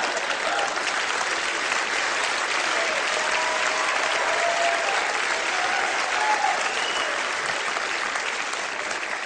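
Large theatre audience applauding steadily after a comedy punchline, easing off near the end.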